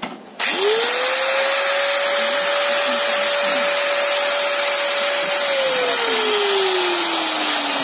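Bosch GWS 6-100 angle grinder's universal motor, just refitted with a new field coil, switched on and running with no disc: it winds up to speed in about half a second to a steady whine. A couple of seconds before the end, its pitch begins to sink slowly.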